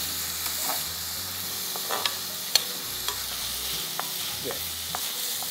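Chopped onion, tomato and green chillies sizzling in hot oil in an aluminium pan while a perforated metal ladle stirs and scrapes them, with a few sharp clinks of the ladle against the pan, the loudest about two and a half seconds in.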